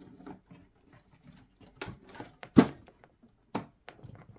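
Hands working inside an open PC tower case, moving the power supply cables aside and fitting a DDR memory stick into the motherboard slot: a run of small clicks, knocks and rustles, the loudest knock about two and a half seconds in.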